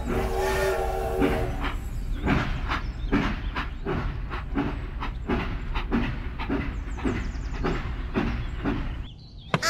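Recorded steam-train sound effect: a steam whistle that stops about a second and a half in, then a steady chuffing rhythm of about two to three beats a second that fades out near the end.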